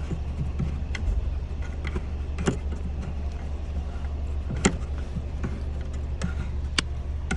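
Scattered clicks and taps from hand-tightening the tail light's white plastic retaining screw, over a steady low hum. The sharpest tap comes a little past the middle.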